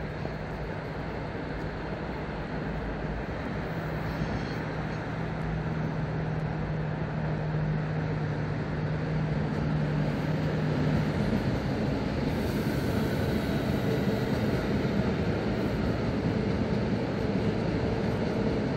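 Hamburg S-Bahn class 490 electric multiple unit approaching and passing, growing steadily louder as it nears. A steady low hum gives way to a broader running noise with a higher steady tone in the second half.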